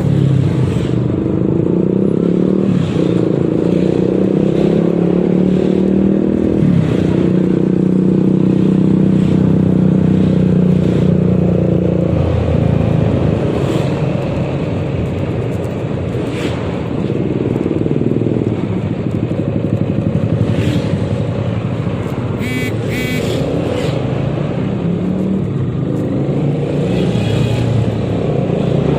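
Yamaha XMAX 300 scooter's single-cylinder engine running under way, its pitch rising and falling as the rider speeds up and eases off. A brief high beep sounds about three-quarters of the way through.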